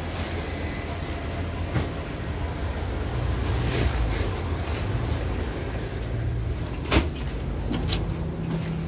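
Steady low engine rumble of vehicles in the street, with a sharp knock about seven seconds in.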